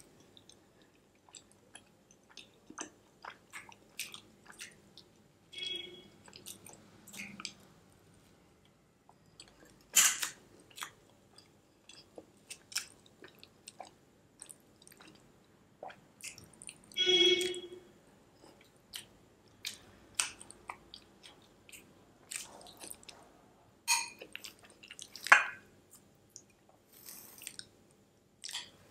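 Close-miked chewing of creamy macaroni and cheese: a run of small wet mouth clicks and smacks, with a few louder sharp sounds scattered through.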